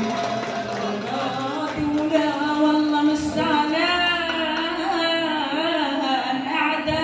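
A woman singing zajal verse into a microphone over the hall's PA, a melodic line of bending, wavering held notes.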